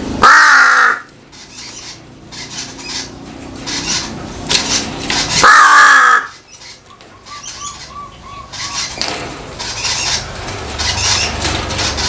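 Crow cawing twice, two single loud, harsh caws about five seconds apart, the first right at the start.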